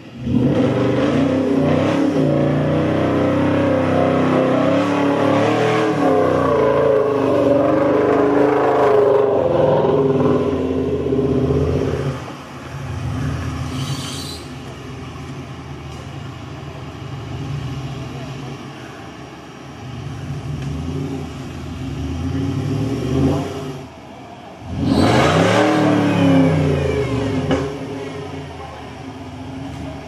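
Off-road 4x4 engine revving loudly, held at high revs for about twelve seconds, then running lower with small surges. About twenty-five seconds in it revs sharply up and back down.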